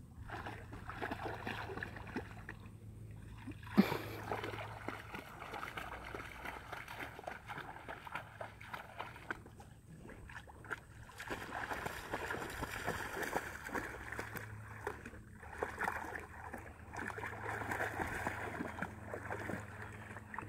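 Water splashing and sloshing as a Gordon setter wades and a Dalmatian swims in shallow lake water, uneven and continuous. There is a single sharp tap about four seconds in.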